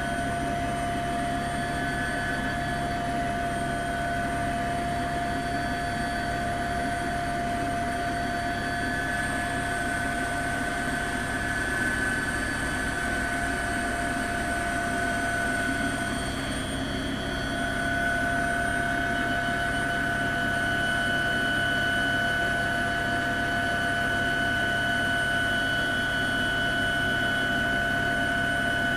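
Helicopter turbine engine and rotor running, heard from on board: a steady rushing drone with a constant high whine over it, a little louder from about seventeen seconds in.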